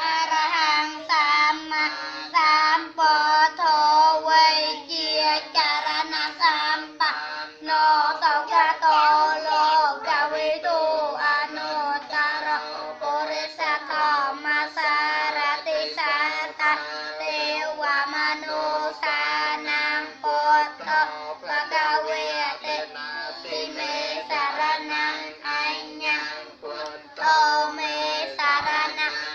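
A group of young children singing together in unison, with a steady low hum underneath.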